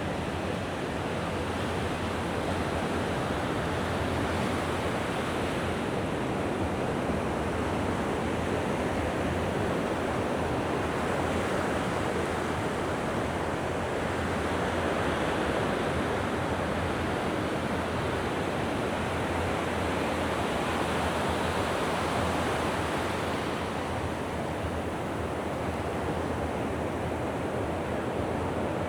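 Mediterranean sea waves washing onto the shore: a steady rush that swells and eases slowly over several seconds.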